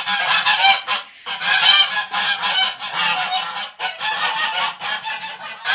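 A flock of domestic geese honking continuously, many calls overlapping, with a brief lull about a second in.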